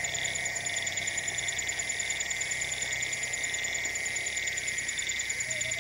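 Dusk chorus of trilling insects: several steady high trills layered together, with a fast pulsing trill on top. This is the evening trilling popularly called 'worm song' (suara cacing), which actually comes from mole crickets. A short low chirp comes near the end.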